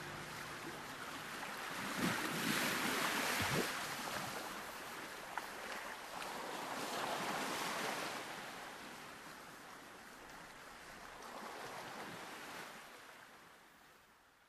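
Sea surf: waves rushing in and washing back, swelling about three times before fading out.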